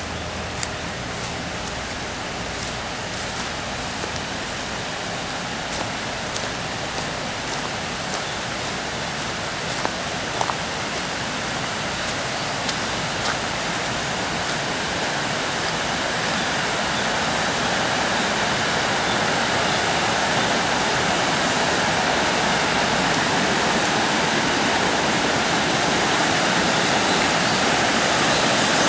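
Running water of a small stream or culvert outflow, a steady rushing that grows gradually louder, with a few faint light clicks in the first half.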